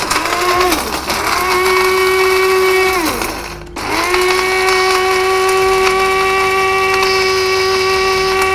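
Anex electric spice grinder grinding dry-roasted whole spices in two runs. Its motor whine rises as it spins up, holds steady for about three seconds, then falls away and stops. It starts again a moment later and runs on steadily.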